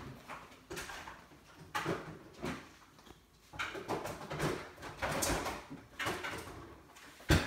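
Kitchen handling sounds: irregular scrapes, rustles and clatters of containers and utensils, with one sharp knock near the end.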